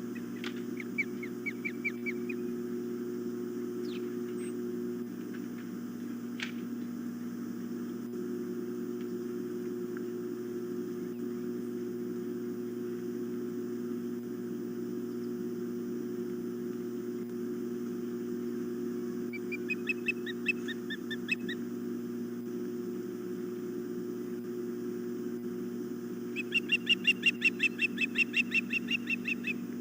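Osprey calling in runs of short, rapid whistled chirps, about five notes a second: a brief run near the start, another about two-thirds through, and the loudest near the end. A steady electrical hum runs underneath.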